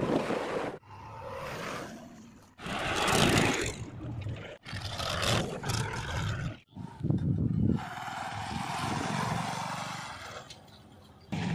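Vehicle engines from a quick run of separate clips, each cut off abruptly after one to three seconds: a backhoe loader, a tractor pulling a loaded trolley and a motorcycle.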